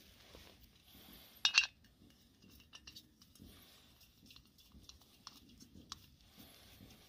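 A gas canister and a remote-canister camping stove's hose fitting being handled: a sharp metallic clink about a second and a half in, then a few light clicks and ticks.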